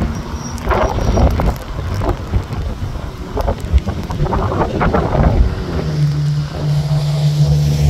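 Storm wind buffeting the microphone over rain and traffic on a wet road. About six seconds in a steady low engine hum from a nearby vehicle sets in.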